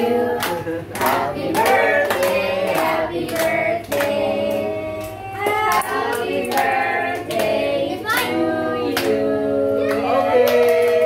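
A group of people singing together, with hand clapping along.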